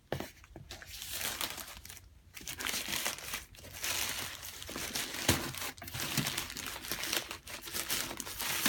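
Shipping packaging crinkling and tearing in irregular bursts as a parcel is unwrapped by hand.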